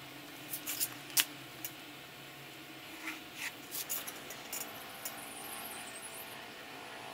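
Scattered light clicks and taps of a pencil, protractor and ruler handled on paper, then the faint scratch of a hobby-knife blade cutting a paper template near the end.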